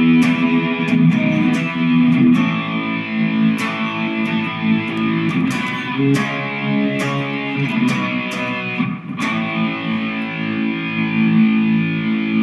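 Harley Benton Les Paul-style electric guitar played with light distortion: a run of picked notes and chords, then a chord struck about nine seconds in and left ringing.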